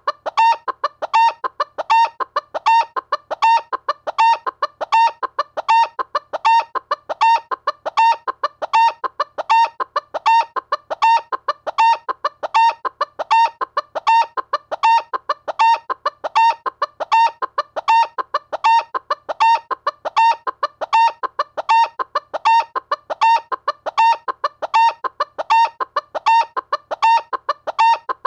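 A chicken clucking over and over, short calls repeating evenly about three every two seconds.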